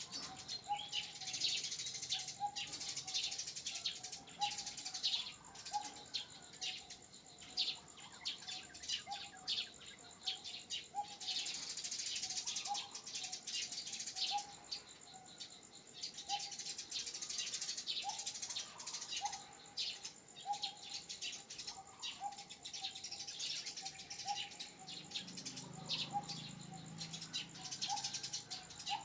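Many birds chirping and calling in dense, overlapping bursts, over a short lower note repeated about once a second and a faint steady high whine.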